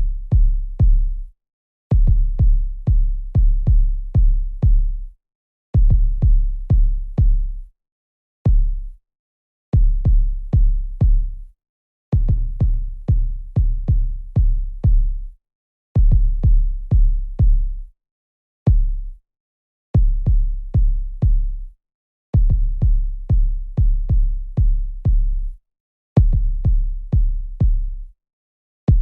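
A soloed drum-machine bass drum (808-style kick) from a hip-hop multitrack, playing deep low hits at about three a second. The hits come in runs of a few seconds, broken by short silent gaps.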